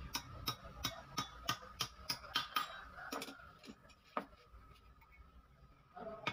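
Light, quick hammer taps on the circlip of a new ball joint pressed into a car's lower control arm, about three a second for some two and a half seconds, seating the retaining clip in its groove; then a few scattered metal clicks as tools are handled.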